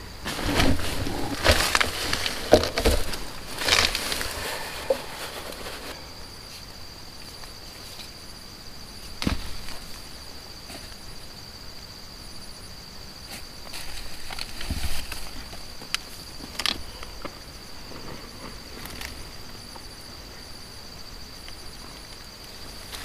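Night insects chirring outside a tent in one steady high-pitched band. Over them come rustling and handling noises as someone moves about inside the tent, heaviest in the first few seconds, then a few sharp knocks.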